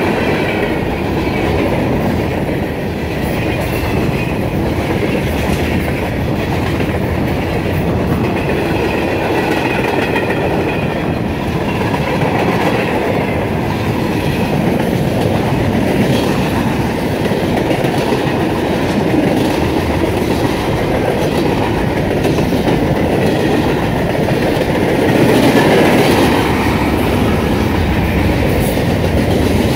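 Freight train's cars rolling past, steel wheels clicking over the rail joints in a steady rumble.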